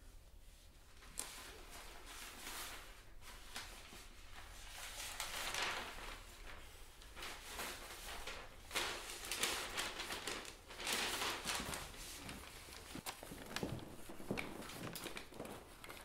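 Irregular rustling and crinkling of clothes and packing materials being handled, with a few light clicks and knocks.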